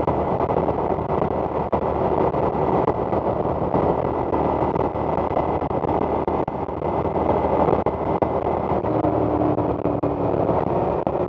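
Motorcycle running at highway speed, its engine note mixed with a steady rush of wind over the rider's helmet-mounted microphone. A low tone comes in briefly near the end.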